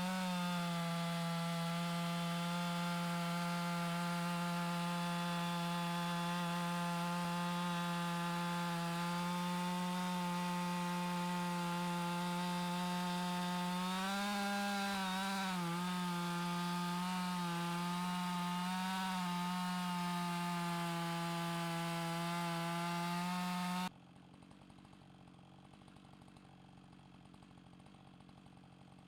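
Chainsaw running at high steady speed while ripping a log lengthwise in an Alaskan chainsaw mill. Its pitch dips and wavers for a few seconds midway, then the sound cuts off abruptly near the end, leaving only faint background noise.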